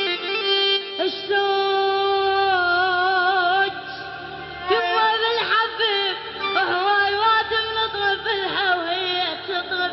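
Male voice singing a sad Iraqi mawwal: long held notes with a wavering vibrato, a short break about four seconds in, then ornate melismatic runs.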